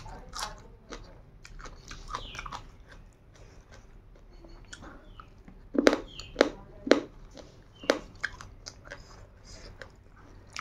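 Close-up chewing of a mouthful of rice and egg paneer curry, with wet mouth clicks and smacks; the loudest few smacks come about six to eight seconds in.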